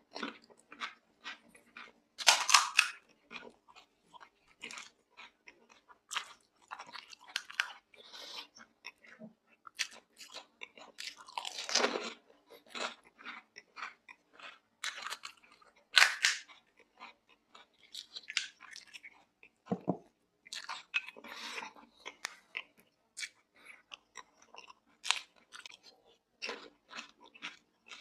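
Close-miked chewing and crunching of crisp pani puri (golgappa) shells, an irregular run of bites and crackly crunches, with a few louder crunches about two, twelve and sixteen seconds in.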